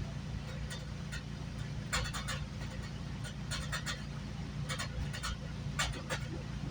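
GO Transit bilevel commuter coach running along the line, heard from inside: a steady low rumble of wheels on rail, with short clusters of clicks and rattles every second or so.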